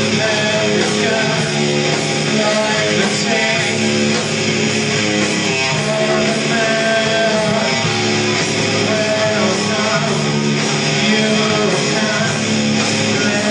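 A rock band playing live, with electric guitar and drums.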